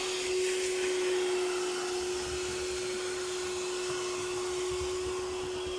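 Wet-and-dry canister vacuum cleaner running steadily while vacuuming a car's interior, its motor holding one steady whine over a hiss of rushing air.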